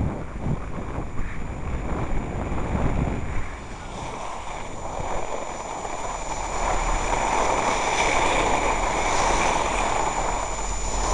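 Wind buffeting the microphone during a ski run, with the hiss of skis sliding over snow. The gusty rumble eases about three seconds in, and the hiss grows stronger about halfway through.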